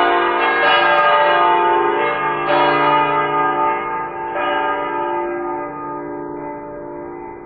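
Church bells ringing, several pitches sounding together, with a new stroke about every two seconds and the ringing slowly dying away near the end.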